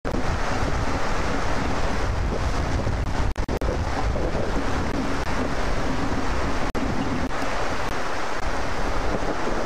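Steady rain with wind rumbling on the microphone: a dense, even hiss over a low rumble. The sound cuts out for an instant a few times.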